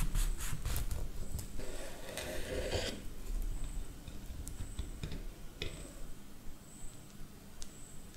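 Chef's knife cutting through a toasted bread-and-omelette sandwich on a wooden cutting board: a few crisp cuts through the crust in the first second, then a sawing scrape of the blade for about a second and a half. After that, a few light taps and clicks as the halves are handled.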